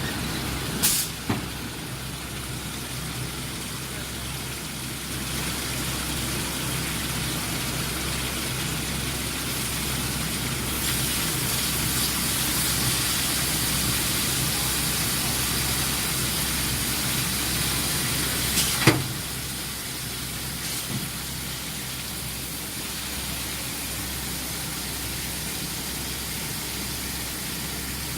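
Induction hardening line for oil sucker rods running: a steady machine hum with a hiss that swells in the middle. Sharp knocks come twice about a second in and once, loudest, a little past the middle.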